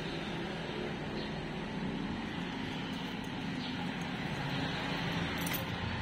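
Steady low background noise, like distant traffic, with one faint click about five and a half seconds in.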